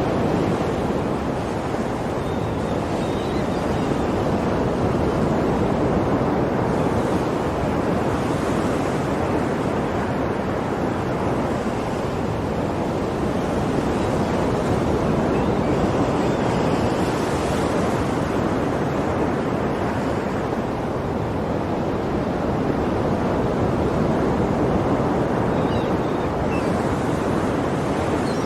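Ocean waves washing onto a shore, a continuous rushing surf that swells and eases slowly every few seconds.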